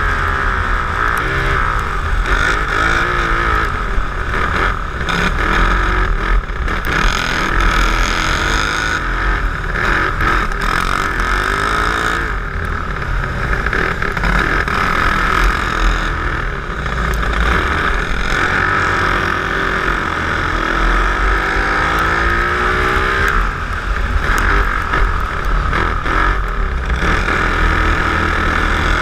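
Twin-engine dirt kart running at racing speed, heard from onboard. The engine pitch climbs under acceleration and drops as the driver lifts for corners, several times over.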